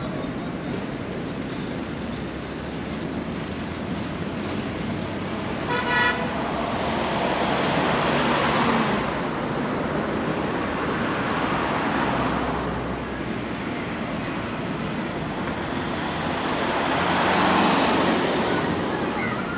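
Road traffic beside the pavement: three cars pass one after another, their tyre and engine noise swelling and fading. A short car horn toot sounds about six seconds in.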